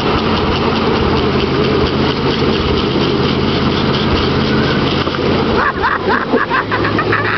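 Pickup truck engine running at high revs while the rear tyre spins in place in a burnout. Near the end a quick run of short squeals breaks in on top.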